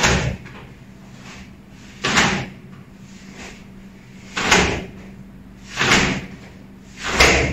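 Karate uniform (cotton gi) snapping and swishing with each fast knife-hand block (shuto-uke) as the hands alternate: five sharp swishes, one to two seconds apart.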